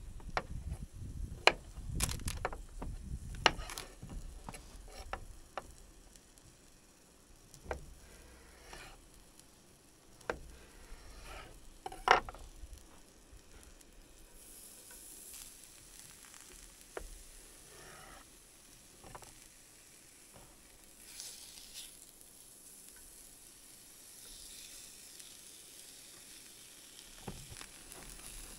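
Cooking sounds: utensils clicking and knocking against a pan, then food starting to sizzle and fry about halfway through with a steady hiss.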